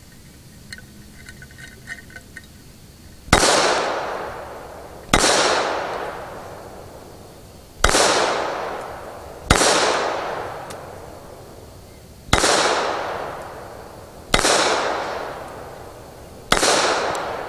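Seven shots from a small semi-automatic pistol, fired one at a time about two to three seconds apart, the first about three seconds in. Each is a sharp crack followed by a long fading echo.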